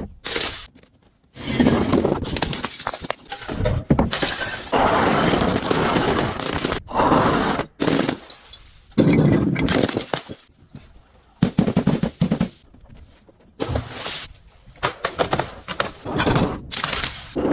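Glass bottles breaking and crunching, a series of shattering, crackling bursts broken by several sudden short silences.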